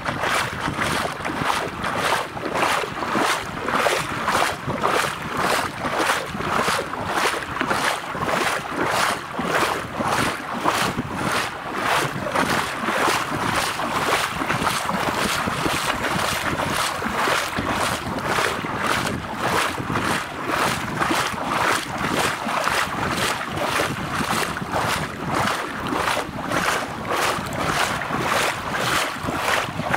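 Water splashing in a steady rhythm, about two splashes a second, with wind noise on the microphone.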